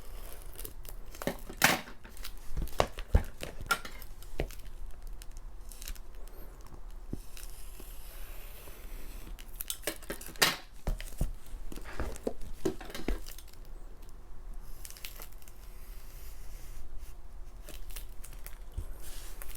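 Plastic shrink-wrap being torn open and crinkled off album packages, with scattered sharp clicks and taps as the packages are handled.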